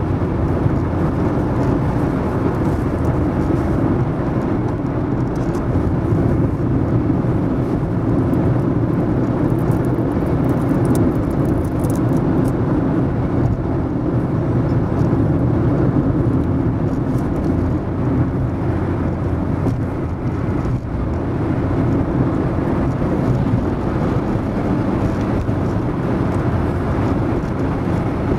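Steady road noise of a car driving at speed on a dual carriageway: even tyre and engine rumble.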